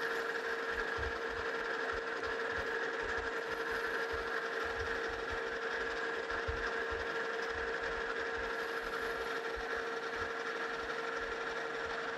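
Metal lathe running steadily with a constant hum and higher whine, while the tool, fed in at a 10-degree angle on the compound, turns a point on the end of the spinning axle.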